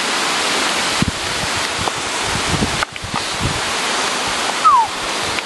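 Mountain creek rushing over stones, a steady loud hiss that cuts out for a moment just before three seconds in. Near the end a short falling squeak sounds once.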